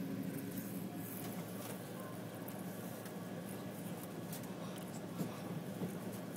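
Running noise of a passenger train heard from inside the carriage: a steady low rumble and hum with scattered light clicks and rattles.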